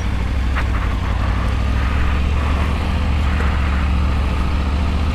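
Triumph Tiger 900's three-cylinder engine running at low revs in first gear while the bike rolls slowly: a steady low drone.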